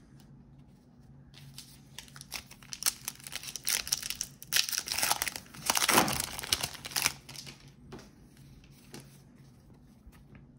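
Foil wrapper of a Topps baseball card pack being torn open and crumpled by hand: a run of crinkling and tearing, loudest about five to seven seconds in, then a few light clicks as it dies away.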